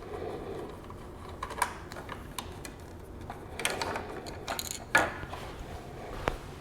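Hand-tool clicks and scraping rattles from a T25 Torx driver backing screws out of the motorcycle's plastic dash assembly. The clicks are irregular, with the loudest about five seconds in and a single sharp click near the end.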